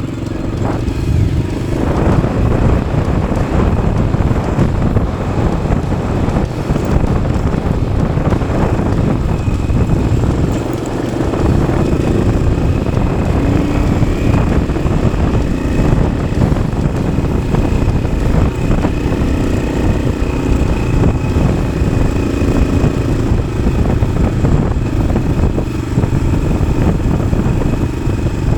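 1993 Yamaha XT600's single-cylinder four-stroke engine with an aftermarket Arrow exhaust, running steadily under load as the bike is ridden off-road, easing off briefly about eleven seconds in.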